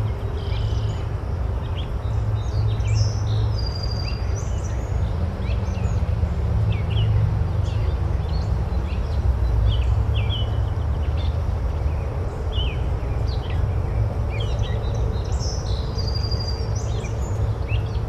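Rainforest ambience: many birds chirping and calling in short notes throughout, over a steady low rumble.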